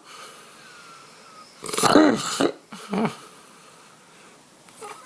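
A person snoring heavily: a loud, rough snore with a wavering pitch about two seconds in, then a shorter snort about a second later.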